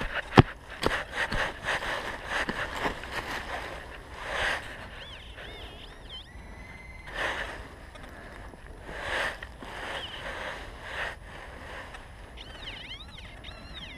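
A digging tool chopping into soil and leaf litter, a run of strikes with one sharp loud hit about half a second in, then soil and dry leaves rustling as they are worked by hand. A warbling electronic tone from a metal-detecting pinpointer sounds briefly mid-way and again near the end as it is held over the dug soil.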